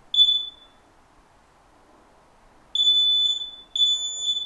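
Combination smoke and carbon monoxide alarm sounding: loud high-pitched beeps. One beep ends a sequence, then after a pause of about two seconds a new sequence starts with beeps about a second apart, the slow three-beep pattern of an activated smoke alarm.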